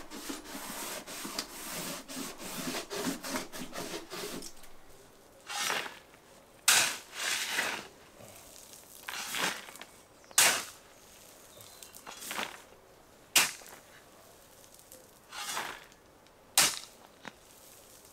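Scraping and rubbing against a stone wall, then a shovel working gravel on a dirt road: a sharp crunch of the blade into the gravel every second or two, often in close pairs.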